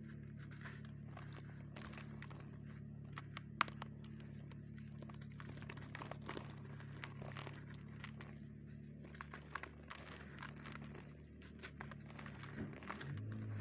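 Hands crumbling a sandy cement chunk into a bucket of muddy water: scattered soft crunches and crackles with wet splashes, and one sharper crack about three and a half seconds in, over a steady low hum.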